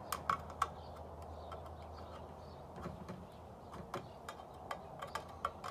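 Knife blade sawing and prying around the lid of a metal food can: a quick run of sharp metallic clicks in the first second, then scattered single clicks and scrapes.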